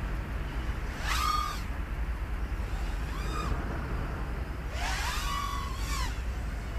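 Small FPV racing quadcopter's brushless motors whining, rising and falling in pitch three times as the throttle is punched during aerobatics, with the last whine the longest. A steady low rumble runs underneath.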